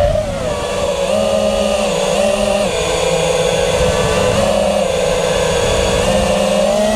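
The 2650kV brushless motors and propellers of an FPV racing quadcopter whine, picked up by the onboard camera. Their pitch falls just after the start, wavers, holds steady, then rises near the end as the throttle changes. Low rumbling airflow noise sits underneath.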